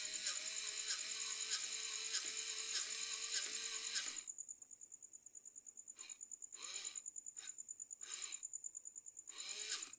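Small electric motor of a homemade remote-controlled helmet robot driving its visor wiper, whirring with a regular click nearly twice a second; it stops about four seconds in, followed by a few short, fainter bursts. Crickets chirr steadily in the background.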